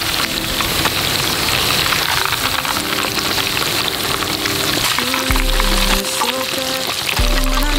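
Whole slabs of boiled pork belly deep-frying in hot oil, a steady crackling sizzle. Background music comes in about three seconds in.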